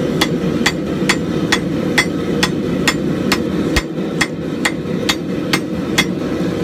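Hand hammer striking white-hot steel on an anvil in an even run of blows, a little over two a second, setting a forge weld where the axe eye's scarfed ends overlap.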